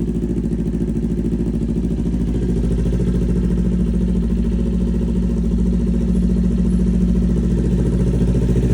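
Kawasaki Ninja 400's parallel-twin engine idling steadily on a cold start, freshly filled with new oil.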